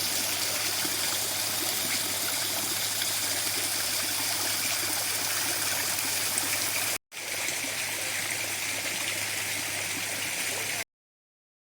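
Steady rush of flowing water. It breaks off for an instant about seven seconds in and then cuts out completely near the end.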